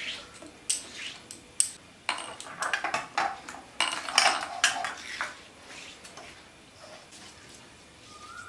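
Metal kitchen utensils and dishes clinking and knocking against each other as they are handled, a quick series of sharp knocks that thins out after about five seconds.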